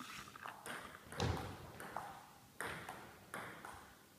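Table tennis rally: the ball clicking off the bats and the table in a quick back-and-forth, about half a dozen sharp pings with a short hall echo, one heavier knock about a second in.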